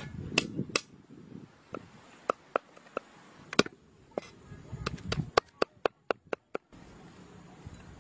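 Cleaver chopping garlic cloves on a wooden cutting board: sharp single knocks spaced out at first, then a quick run of about eight chops a little past halfway.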